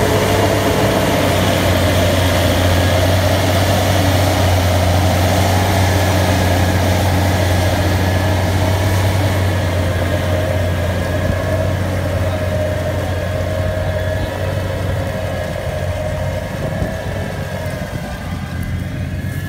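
Tractor engine running steadily under load while pulling a Pöttinger Aerosem VT seed drill through wheat stubble, with the drill's working noise mixed in; a steady low hum that grows quieter over the second half.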